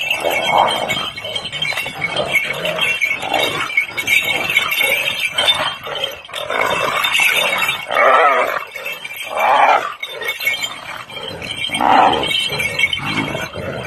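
Dogs attacking a hyena: growling and snarling, with loud cries every second or two over a steady high hiss.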